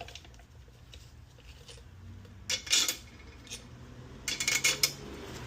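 Metal parts clinking and rattling against each other as a motorcycle stand's caliper holder is handled and fitted. There is a short burst of clinks about two and a half seconds in and a longer rattle near the end.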